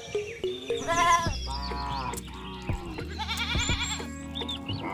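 Several wavering bleats, like a goat or sheep, one after another over background music with steady low notes.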